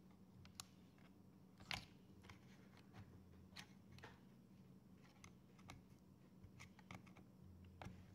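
Faint, scattered clicks and small scrapes of a screwdriver and tweezers working on a laptop screen's metal hinge and plastic bezel. The loudest click comes a little under two seconds in, all over a low steady hum.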